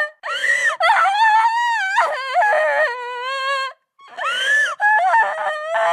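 A high-pitched voice screaming and wailing in two long drawn-out cries, its pitch bending up and down, with a short break between them.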